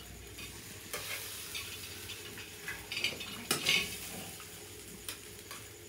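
Metal ladle stirring and scraping spice masala as it fries in oil in an iron wok, with a faint sizzle and a few sharp metal clinks.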